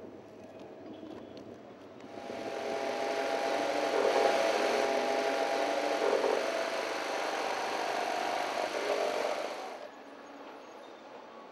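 A loud, steady motor-driven machine noise with a wavering hum, starting about two seconds in and cutting off abruptly near the end.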